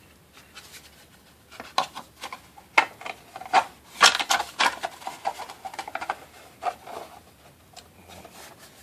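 Plastic model kit parts being handled and tried together: a run of light clicks, taps and rubbing, busiest in the middle.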